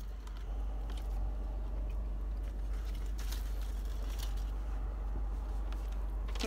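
A man chewing a mouthful of maple chicken biscuit sandwich close to the microphone, with a few faint crunches and clicks, over a steady low hum.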